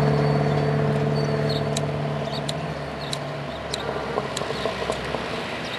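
Car engine running with a steady hum that fades away over the first three seconds or so, followed by a low background hum and a scattered run of light clicks.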